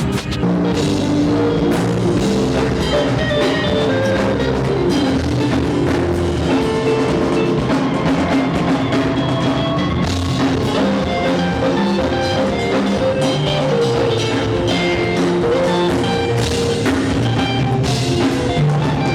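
Band music with a drum kit and guitar playing a steady beat.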